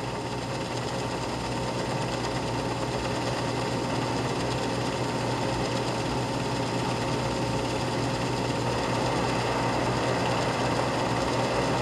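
An 8 mm film projector running: a steady mechanical whirr with a low hum beneath it.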